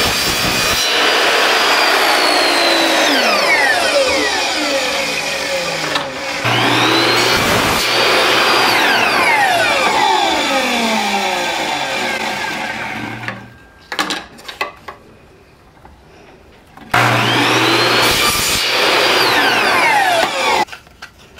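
Ryobi miter saw motor spinning up with a rising whine, cutting through thin wood strips, then winding down with a falling whine, three times over. In the pause about two-thirds through there are a few light clicks as a strip is set against the fence, and the last run stops abruptly near the end.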